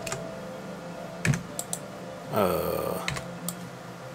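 Computer keyboard keystrokes and mouse clicks: a few separate sharp clicks, the loudest just after a second in. A brief falling whoosh comes a little past the middle, over a steady low electrical hum.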